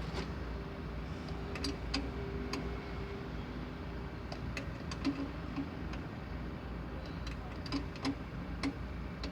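Steady low mechanical rumble with about a dozen sharp clicks and ticks at uneven spacing, like tools knocking on metal.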